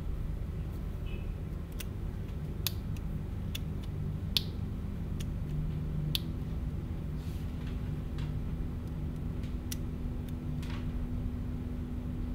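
Steady low room hum with a dozen or so small, sharp clicks and taps scattered through it, and a faint steady tone joining about halfway.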